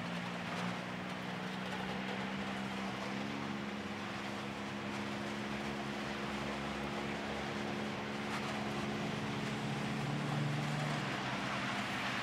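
Skid cars' engines, front-wheel-drive cars with skid plates on the back, running at steady held revs, the pitch stepping up once about three seconds in. A constant hiss runs underneath.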